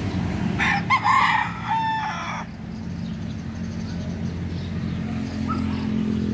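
A gamecock rooster crows once, starting about half a second in and lasting about two seconds, ending on a held note. Faint short clucks follow, over a steady low hum.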